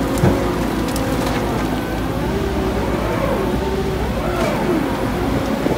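Arjes Impaktor 250 shredder working under load with the Cat 312E excavator's engine running as its grapple feeds a tree trunk and brush into the hopper: a steady engine drone whose pitch rises and dips as the machines labour. A few sharp cracks of wood breaking come through, one loud crack just after the start.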